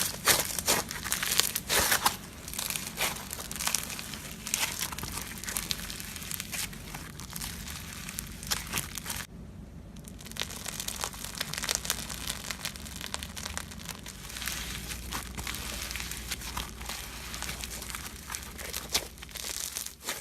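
Slime being squeezed and poked by hand: dense, irregular crackling and clicking, with a brief break about nine seconds in.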